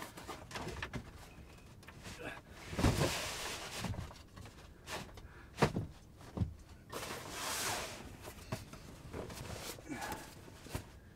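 Pull-out bed in a camper van being slid out and handled by hand: a few wooden knocks and thumps, with a stretch of blanket rustling a little past the middle.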